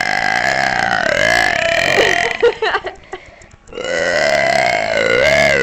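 A girl belching two long, drawn-out burps, one after the other with a short pause between.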